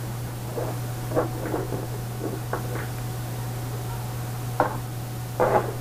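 Small fishing tackle being handled: a handful of light, irregular clicks and knocks over a steady low hum.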